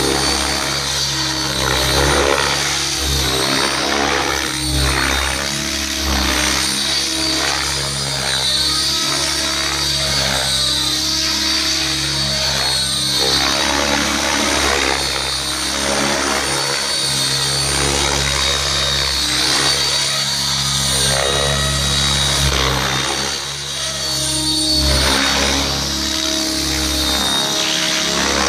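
Blade 700X electric RC helicopter flying aerobatics: a continuous high motor whine and rotor-blade noise that sweeps up and down in pitch, over and over, as the helicopter turns and changes blade pitch.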